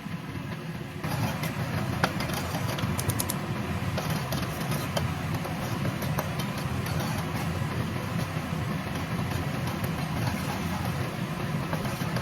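Food stir-frying in a hot pan: a crackling sizzle over a steady low rumble, getting louder about a second in.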